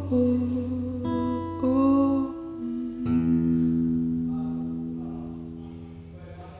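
The closing bars of a slow song: a woman's voice holds a wordless note over acoustic guitar. About three seconds in a last guitar chord is struck and rings out, fading slowly.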